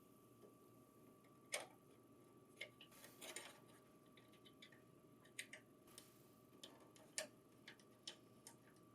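Near silence with about a dozen faint, irregular clicks and taps: a printer power cord's plug being handled and pushed into the printer's power socket.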